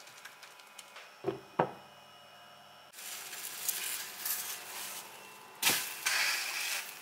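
Grated-potato pancake frying in a dry non-stick pan without oil, a faint crackling sizzle with two soft knocks a little after a second in. From about three seconds in the sizzle is a louder steady hiss, and a silicone spatula knocks and scrapes against the pan a little past halfway.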